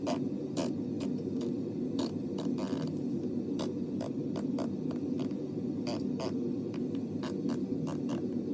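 Steady low hum with sharp clicks scattered irregularly through it, a few a second.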